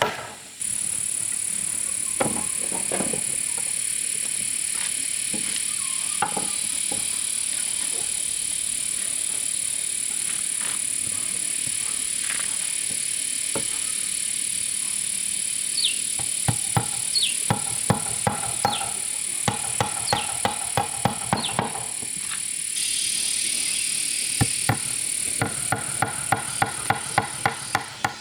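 Repeated sharp knocks of a tool striking wood, sparse at first and then about two a second from midway, over a steady high-pitched drone.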